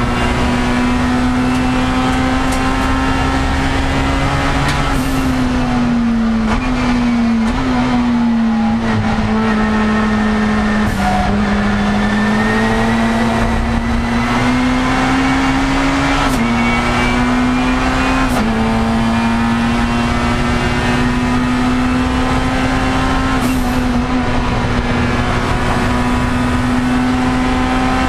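Race car engine running hard at high revs, heard from inside the cockpit, its pitch held nearly level with brief dips and recoveries every few seconds over constant road and wind noise.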